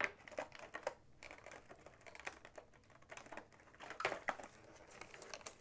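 Faint, scattered clicks and taps of hands handling a clear plastic packaging tray and small plastic parts, with a few louder taps about four seconds in.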